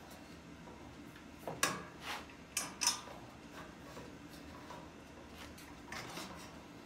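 Light metal clicks and taps from the IKEA Råskog cart's metal parts being handled as a bolt is fitted at a basket corner: a cluster of about five between one and a half and three seconds in, then a faint one near six seconds.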